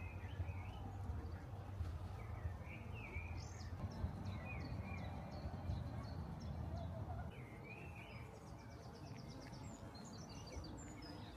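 Small birds chirping and singing, with short phrases throughout and a rapid trill of evenly spaced notes about two thirds of the way in, over a steady low background rumble.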